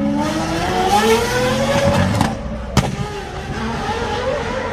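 Car engine accelerating: its pitch climbs steadily for about two seconds, then holds roughly level. A single sharp crack about three seconds in.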